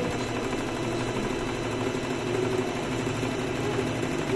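Singer M3305 electric sewing machine running steadily at an even speed, stitching fabric that is fed through by hand.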